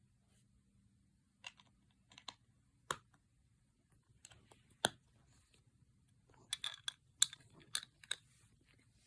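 Plastic Lego bricks being handled and pressed together, giving a series of sharp clicks and snaps, with a quicker cluster of clicks a little past the middle.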